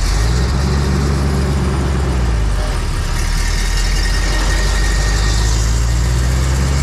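A large engine running steadily at constant speed, with a low even hum under a broad hiss.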